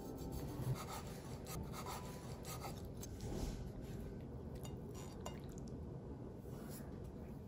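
Kitchen knife slicing through a rolled egg omelette on a wooden cutting board: quiet cuts, scrapes and light taps of the blade on the board.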